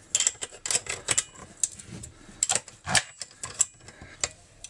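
Irregular metallic clicks and clatter of a hand tool working the chainsaw's clutch during reassembly, as the clutch is being tightened.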